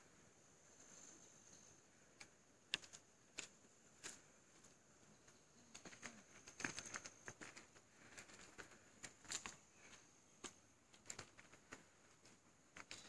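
Near silence, broken by scattered faint clicks and ticks that come most thickly in the middle, over a faint steady high hiss.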